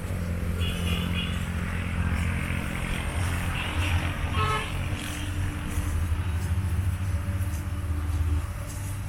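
Motor engine running with a steady low hum, with a short horn toot about halfway through; the hum drops away near the end.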